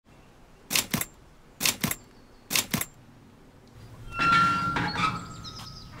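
Sound effects for an animated logo: three double knocks about a second apart, then a louder creak with a ringing metallic tone as an iron gate swings open, fading away at the end.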